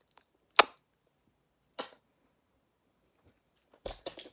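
Hard plastic baby toys knocking and clicking as they are handled: a sharp knock about half a second in, another a little over a second later, then a quick run of small clicks near the end.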